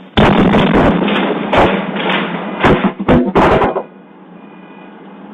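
An elderly man sneezing explosively, loud enough to overload the recording. The outburst starts suddenly, lasts about three and a half seconds, and has several sharp peaks near the end.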